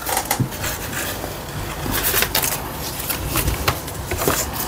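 Paper leaflets and cardboard packaging rustling and scraping as hands shuffle them about, with many small sharp clicks and taps.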